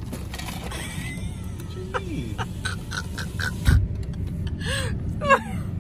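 Low steady rumble of an idling car, with scattered short high calls and a run of quick chirps, and one sharp thump a little past halfway.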